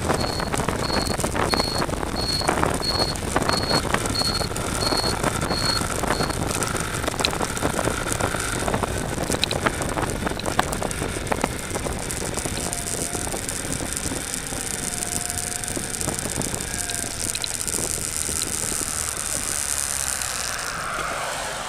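Toros GP 500 riding along the road, its engine running under steady wind and road noise on the handlebar-mounted camera. A high, short beep repeats about twice a second for the first six seconds, then stops.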